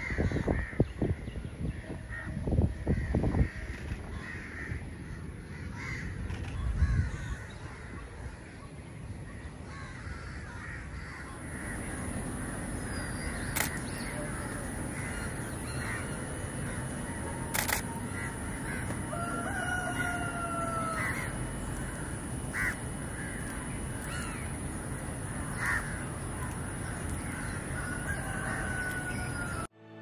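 Birds calling around an urban lake, harsh caw-like calls and a few short falling whistles over a steady background hum. Low thumps in the first few seconds.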